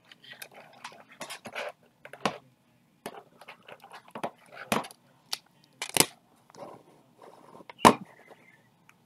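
Plastic card sleeves being handled: a string of crinkles and short sharp clicks, with two louder taps in the second half.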